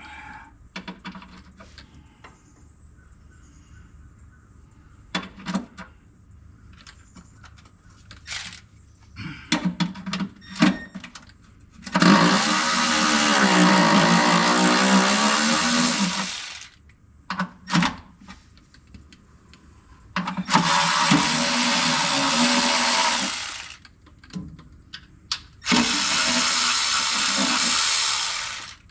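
Handheld power tool running in three bursts of about four, three and three seconds, with short metal clinks and knocks between.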